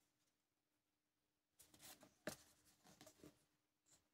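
Near silence, then from about a second and a half in, faint rustling and a light tick of stiff art cards being shuffled in the hands.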